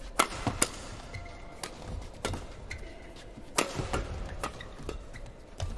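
Badminton rackets hitting a shuttlecock in a fast rally: a series of sharp cracks at uneven intervals.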